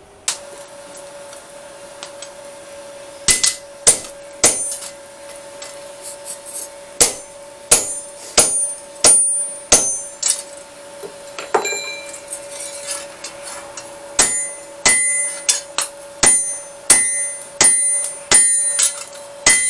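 Hammer blows on a blacksmith's anvil drawing out a steel blade, each strike with a short metallic ring. The blows come in irregular groups, first a few scattered strikes and then a steadier run of about two a second near the end. A steady hum runs underneath.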